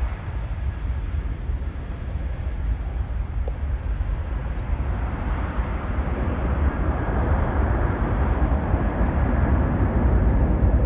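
Twin turbofan engines of an Airbus A310 cargo jet at takeoff power as it lifts off and climbs away: a steady rumble and rushing noise that grows louder through the second half.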